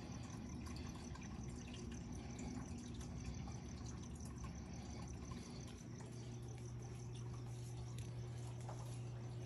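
Water trickling and dripping, with a steady low hum that comes in about six seconds in.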